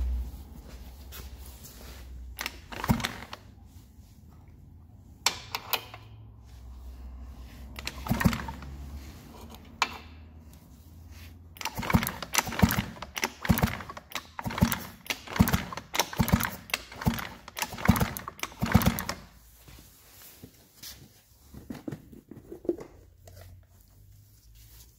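Hand work on a scooter: scattered clicks and knocks of tools and metal parts, then a run of sharp knocks about twice a second in the middle, tailing off to light taps.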